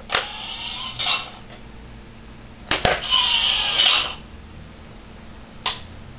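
Hasbro Iron Man 2 helmet toy playing electronic sound effects through its small speaker: a whooshing burst of about a second at the start, a louder one lasting over a second with a sharp click about two and a half seconds in, and a short burst near the end.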